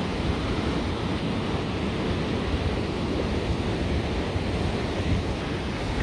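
Stormy sea surf breaking on a sandy beach, a steady wash of waves, with wind buffeting the microphone.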